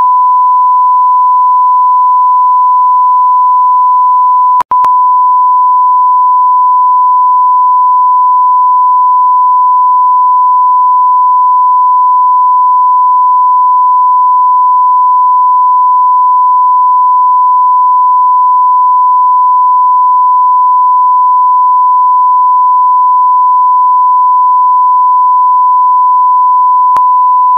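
Continuous electronic sine tone held at one steady pitch, like a test-tone beep. It is broken by a brief dropout with a click about four and a half seconds in.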